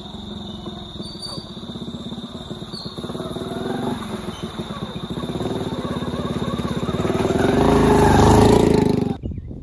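A small engine running steadily and growing louder toward the end, then cutting off suddenly.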